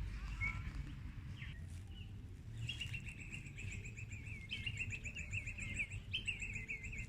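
A bird calling in quick runs of rapid, repeated chirping notes, starting a few seconds in, over a low steady outdoor rumble.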